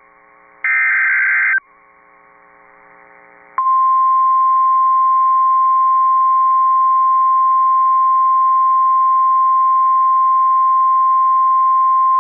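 Emergency Alert System tornado-warning broadcast: the last SAME digital header burst, a buzzy data squawk about a second long, then after a pause of about two seconds the steady single-pitch National Weather Service warning alarm tone starts.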